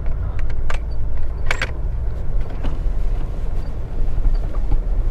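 Four-wheel drive rolling slowly over a rough grassy track, heard from inside the cab: a steady low engine and tyre rumble, with a few sharp clicks and rattles, the loudest a double click about a second and a half in.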